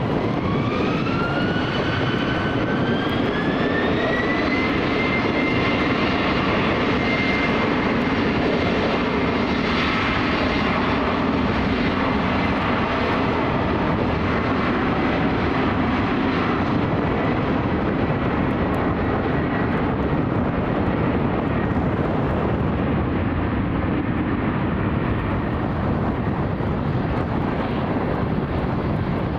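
Embraer E190 jet airliner's turbofan engines spooling up for takeoff: a whine rises over the first few seconds, then holds steady over a heavy jet roar.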